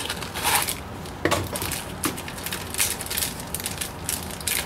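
Small plastic parts being handled: a Magpul MOE grip core and its storage pieces clicking and knocking about half a dozen times.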